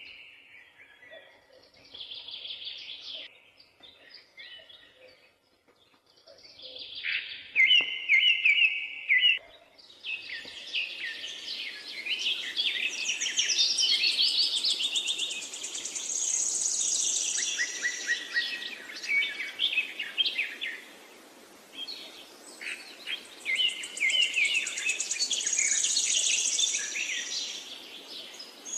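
Many birds chirping and calling at once. A few scattered calls and repeated trills at first, then from about ten seconds in a dense chorus of overlapping chirps and trills.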